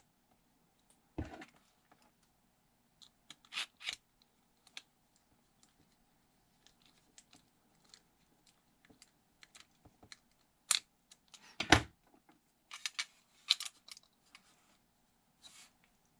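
Scattered small clicks, taps and knocks of plastic and metal parts of an airsoft gas blowback pistol's slide being handled and fitted, with a tiny precision screwdriver turning a small screw. The knocks are irregular; the loudest comes about twelve seconds in, followed by a quick run of clicks.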